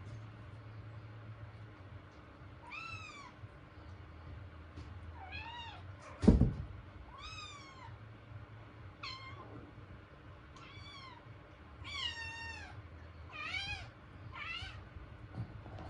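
Kitten meowing repeatedly: about eight short, high-pitched mews, each rising then falling in pitch, coming every second or two. A single loud thump about six seconds in is the loudest sound.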